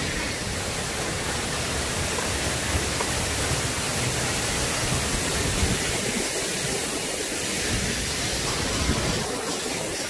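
Waterfall: a steady rush of falling water, heard close and filling the whole range from low to high.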